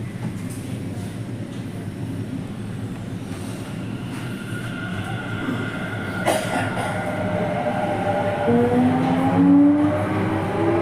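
Delhi Metro train heard from inside the coach: a steady running rumble that slowly grows louder, with a single click about six seconds in. Near the end, the traction motors' whine rises in steps as the train accelerates.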